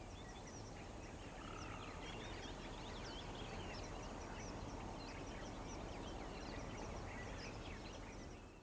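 Birds chirping and twittering, many short, quick calls over a steady background hiss, fading out near the end.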